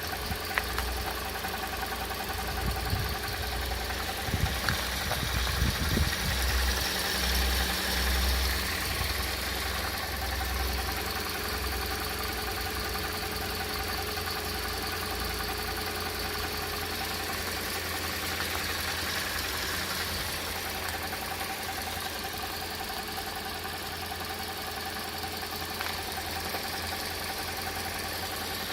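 Toyota 1.8-litre Valvematic four-cylinder engine idling with a knocking noise, louder and uneven for a few seconds early on, then steady; the owner is unsure whether it is engine knock or normal running noise.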